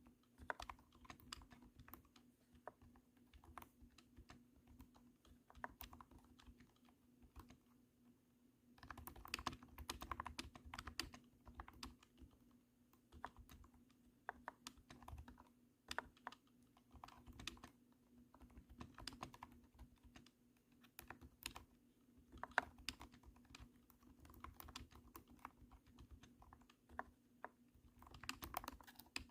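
Typing on a cat-shaped keyboard: thunky keystrokes in an uneven rhythm, with quicker runs of keys about nine seconds in and near the end, over a faint steady hum.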